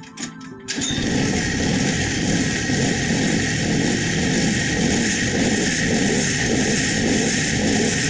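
Honda 200cc single-cylinder go-kart engine catching after a pull start about a second in, then running steadily.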